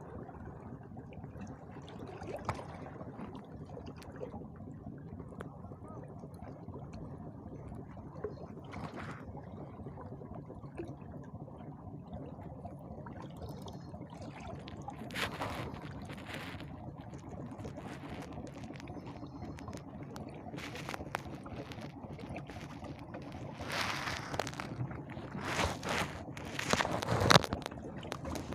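Seawater washing and lapping against shore rocks in a steady wash, with a few louder rushes of water near the end.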